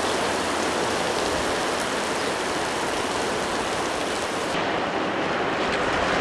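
Steady hiss of rain. The highest part of the hiss thins out about four and a half seconds in.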